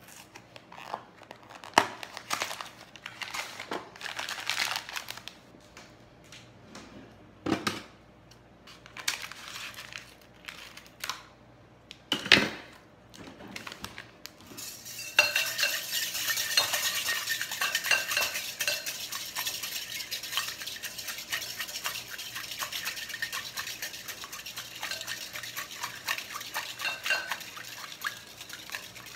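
For about the first 15 s, scattered clicks and paper rustles as a Jell-O box and its powder packet are opened. Then a wire whisk stirs steadily and quickly against a glass bowl of boiling water, dissolving the gelatin powder as it is poured in slowly so it does not clump.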